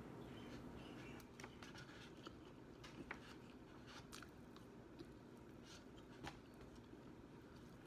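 Faint chewing and biting on fried chicken wings, with scattered small mouth clicks.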